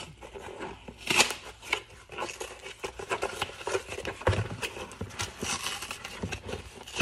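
Cardboard shipping box being torn open by hand: irregular ripping, scraping and rustling of cardboard, with the sharpest rip about a second in.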